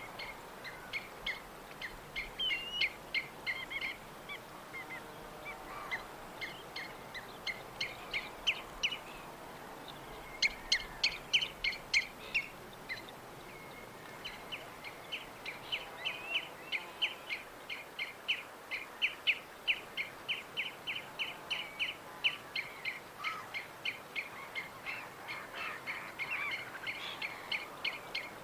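Small birds chirping in quick runs of short, high notes, several birds at once, over a faint steady hiss of background noise.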